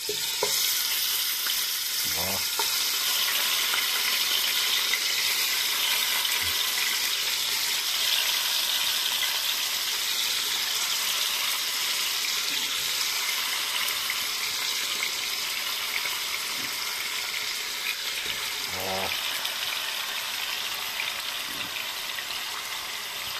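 Pork pieces sizzling as they fry in hot fat in a cast-iron pot. The sizzle starts as the meat goes in and settles into a steady hiss that slowly eases.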